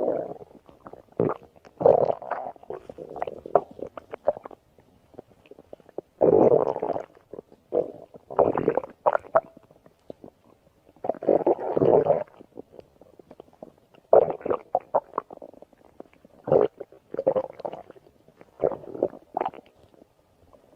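Stomach growling: irregular gurgles and rumbles in bursts. The longest and loudest swells, each about a second, come about six, eight and a half and eleven seconds in, with short quieter gaps between.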